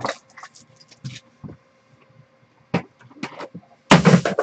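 Cardboard trading-card box and foil card packs being handled, with scattered short rustles and clicks. Near the end comes a louder clatter as the packs are tipped out onto the table.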